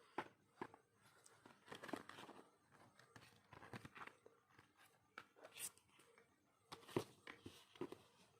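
Faint handling of unboxed merchandise and its packaging: scattered light taps, clicks and rustles, with a sharper knock about seven seconds in.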